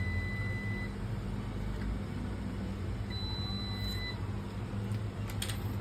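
Digital multimeter beeping in continuity mode, two steady high beeps of about a second each, at the start and again about three seconds in: the probes are on the graphics card's 5 V rail, which is shorted to ground. A steady low hum runs underneath.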